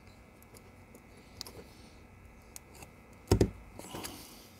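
A DIP microcontroller chip being pressed into its IC socket on a circuit board: faint clicks of handling, and one dull thud a little over three seconds in as it is pushed home.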